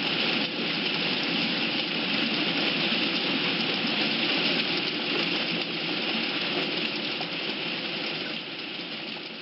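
Steady rushing, water-like noise that starts to fade near the end.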